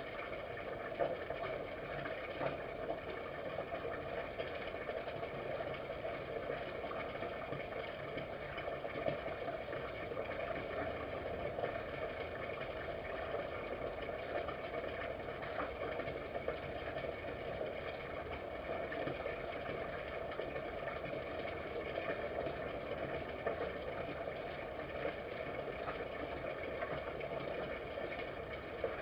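Steady background rumble and hiss with no distinct events, broken only by a few brief faint ticks.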